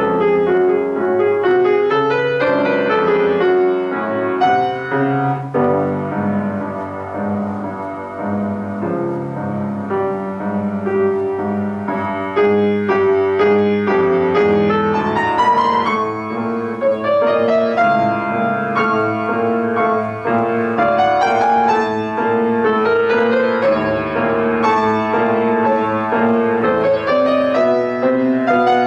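Solo grand piano playing a classical piece: a melodic line over sustained chords, with phrases that climb higher near the middle and again near the end.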